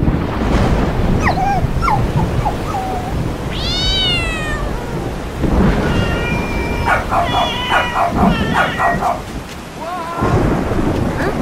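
Storm sound effect: steady heavy rain with a low thunder rumble. Over it come high animal cries: one long whine that rises and falls about four seconds in, then a quick run of short yelps from about six to nine seconds.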